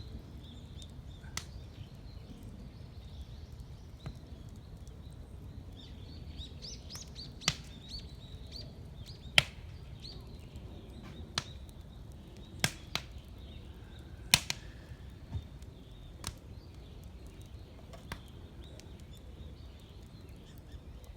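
Wood fire burning in a drum can, giving off irregular sharp pops and cracks, about a dozen of them, the loudest about nine and fourteen seconds in. Small birds chirp faintly in the background.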